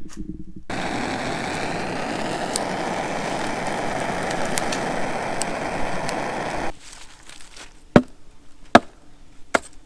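A steady rushing noise with scattered crackles cuts off suddenly, then a dull axe strikes wood three times, a little under a second apart.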